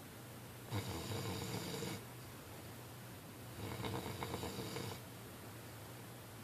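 Snoring: two long snores about three seconds apart, each lasting over a second.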